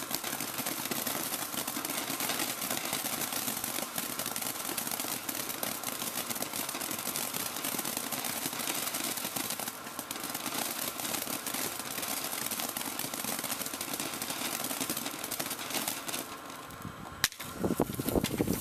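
Ground firework fountain spraying sparks with a dense, steady crackling hiss that lasts about sixteen seconds, then dies away. Near the end comes one sharp crack, then a few louder knocks.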